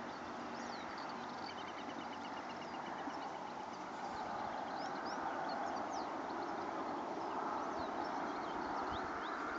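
Small birds chirping with short, high notes scattered throughout, including a quick trill of about a dozen even notes a couple of seconds in. Under them is a steady rushing noise that swells slightly about halfway through.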